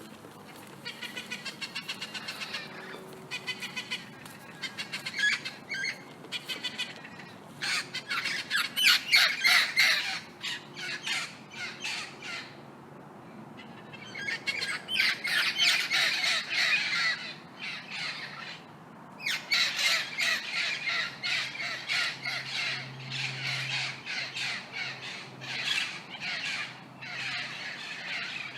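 Several parrots squawking and screeching in harsh, overlapping runs of calls, with brief lulls between bursts.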